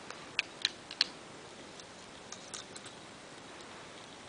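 Plastic Lego bricks clicking and knocking as they are handled and pressed together: four sharp clicks within the first second, then a few fainter ones a little after two seconds in.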